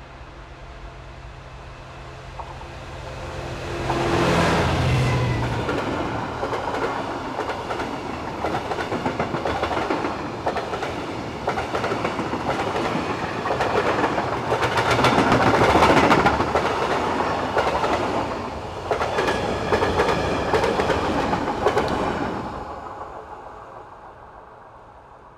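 Diesel-hauled freight train passing. The locomotive's engine runs as it approaches and is loudest as it goes by about four seconds in. Then the wagons rumble and clatter over the rail joints, and the sound fades away near the end.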